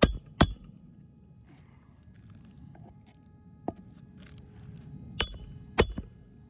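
Hammer blows on metal during roof work, each strike sharp with a bright ringing tone: two quick strikes at the start, a single light click midway, and two more strikes near the end.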